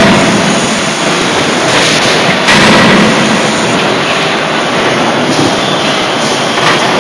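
Loud, steady din of forging-shop machinery around a working hydraulic die forging hammer. There is a louder rushing surge about two to three seconds in and a faint knock near the end.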